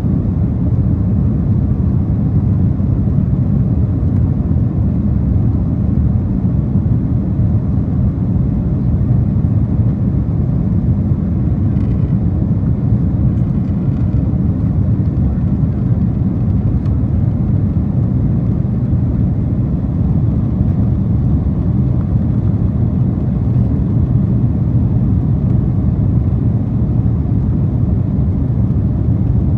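Steady low rumble of engine and airflow noise inside the cabin of a Boeing 767-400ER climbing after takeoff.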